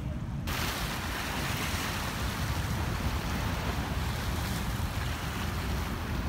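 Choppy bay water washing and splashing against a stone seawall, with wind buffeting the microphone as a low rumble. The hiss of the water comes in suddenly about half a second in.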